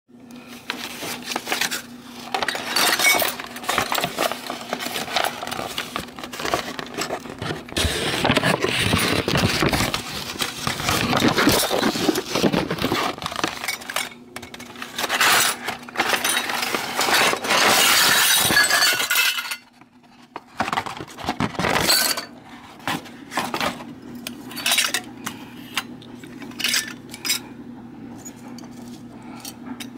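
Brown paper bag crinkling and rustling loudly as hands open it and rummage inside. It stops suddenly about two-thirds of the way through, followed by scattered light clicks and clinks of the lithographed tin toy dishes of a 1960s Ohio Art tea set being handled and set down.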